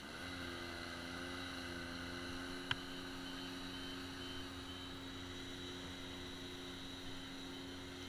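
An engine comes on and settles quickly into a steady, even hum at a constant pitch. A single sharp click sounds about three seconds in.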